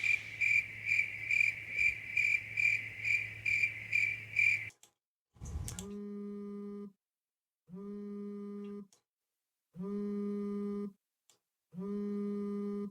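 Electronic sound effects: a rapid high beeping, about four pulses a second, that cuts off suddenly, then a low buzzy tone that sounds four times, about a second on and a second off, like an old phone ringtone.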